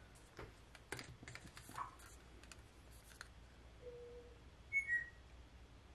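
Faint clicks and taps of small paint cups and a wooden craft stick being handled, several in the first three seconds. About five seconds in come two brief high-pitched squeaks, the loudest sound here.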